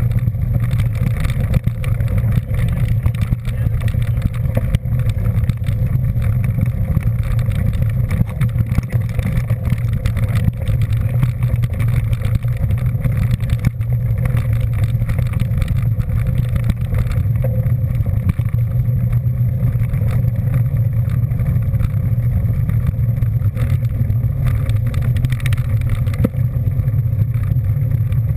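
A vehicle on the move, a steady low rumble that holds the same pitch and level throughout, with no revving or gear changes.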